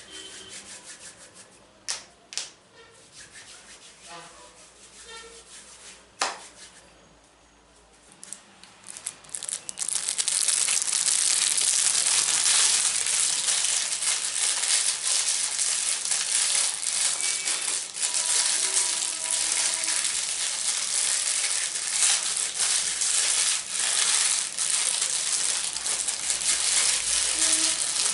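Close-up ASMR triggers: a few sharp taps and clicks over quiet rustling, then, from about ten seconds in, loud continuous scratching and rubbing close to the microphone.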